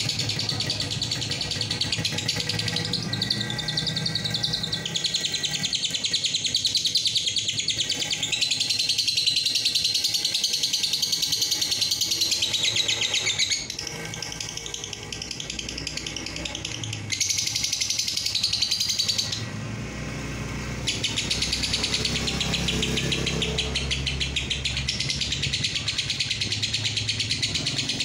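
Fischer's lovebird singing its long 'ngekek': a fast, unbroken high-pitched chatter of rapid repeated notes, held for long stretches. It drops back briefly about halfway through and again about two-thirds of the way in. A low rumble runs underneath.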